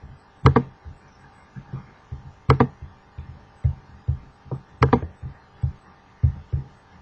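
A series of knocks: three sharp clicks about two seconds apart, over a run of softer, low thuds.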